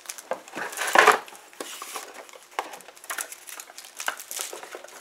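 Packaging being handled as hands struggle to open the case of a challenge coin: a run of crinkling, scraping and small clicks, with one louder knock about a second in.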